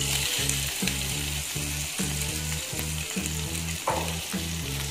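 Hot oil with mustard seeds and asafoetida sizzling as potato chunks, onion and green chillies are dropped into the pan; the sizzle starts suddenly and then holds steady. Background music with a steady beat plays underneath.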